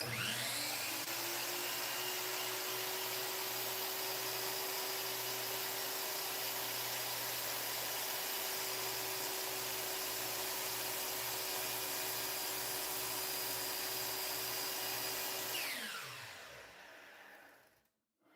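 Miter saw motor spinning up, running steadily through a slow cut into plywood, then winding down after about fifteen seconds.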